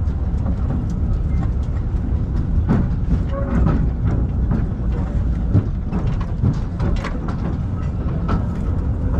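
Taiwan Sugar Railway narrow-gauge passenger car running along the track: a steady low rumble with irregular clacks and knocks from the wheels and rails.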